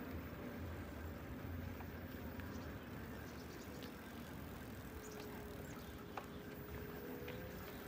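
Faint outdoor traffic ambience: a steady low rumble with a light hiss. A thin held tone joins it about five seconds in.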